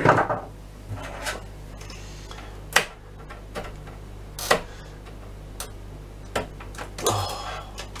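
Irregular sharp clicks, taps and brief scrapes of pliers and fingers on the plastic chassis and circuit boards of an opened oscilloscope, about one every second or so, over a steady low hum.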